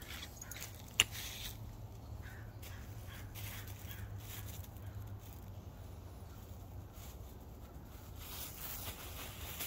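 Quiet outdoor ambience: a steady low hum with faint bird calls, a single sharp click about a second in, and rustling near the end.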